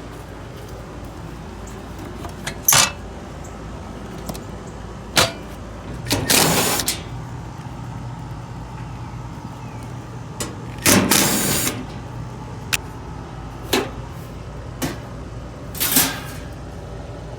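Hands working on equipment: scattered clicks and knocks, with a few brief scraping or rattling rustles, over a steady low hum.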